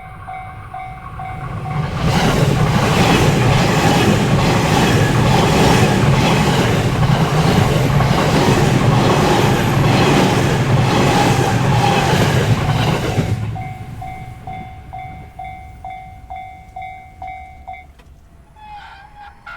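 Japanese level-crossing warning bell clanging about twice a second while a JR Narita Line train passes through the crossing for about twelve seconds, its wheels knocking rhythmically over the rail joints and drowning out the bell. The bell is heard again after the train has gone, then stops.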